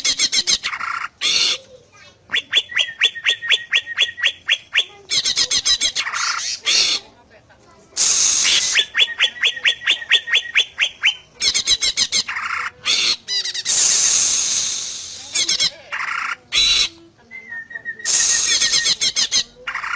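Green leafbird (cucak ijo) singing a loud, varied song: fast runs of repeated short notes and trills, a harsh chattering burst, and a short held whistle, with brief pauses between phrases.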